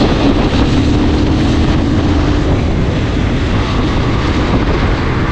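Motorcycle engine running steadily under way, with wind noise over the microphone.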